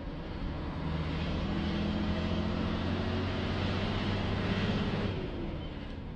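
Truck engine heard from inside the cab, pulling under power after a gear change: its steady note firms up about a second in, rises gradually, then falls away about five seconds in.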